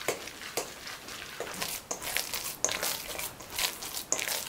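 Raw pork mince with grated onion and egg white being mixed in a stainless steel bowl, with a spoon and then by hand: a run of short, irregular mushy strokes, a couple a second.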